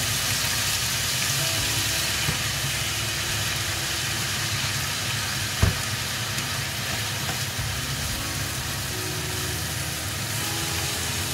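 Grated mango sizzling as it fries in mustard oil in a non-stick pan, stirred and turned with a wooden spatula, over a steady low hum. One sharp knock about halfway through.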